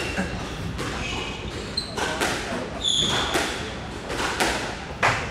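Scattered thuds of squash balls and short, high squeaks of court shoes on a wooden court floor.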